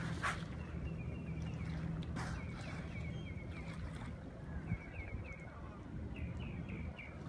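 Steady low hum of a boat engine running across the water, with series of short, quick bird chirps breaking in several times. A couple of brief rushes of noise come in the first few seconds.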